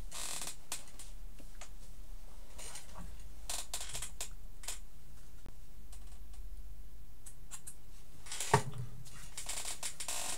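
Handling noises at a table: a book's pages turned, then small objects moved about, a scatter of light clicks and rustles with one sharper knock about eight and a half seconds in.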